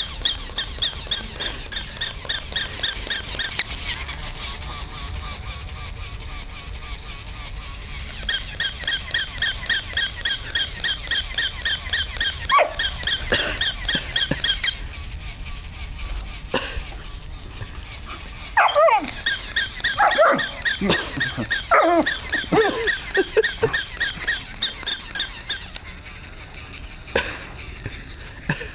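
Battery-powered toy West Highland White Terrier giving electronic squeaky yaps, repeated evenly about three or four a second in three long runs. Scattered lower, sliding yelps come in the middle stretch.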